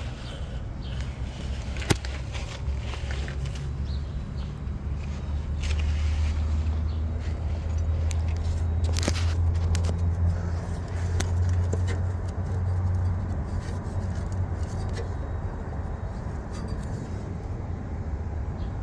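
Low engine rumble of a nearby vehicle that grows louder through the middle and then eases off, with a few sharp clicks and scrapes of handling close by.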